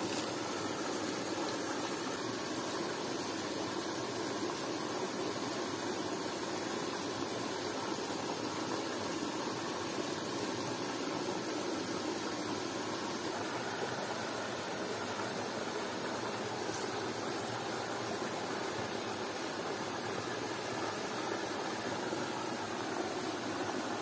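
Steady rush of falling water from a waterfall, an even hiss and roar that does not change.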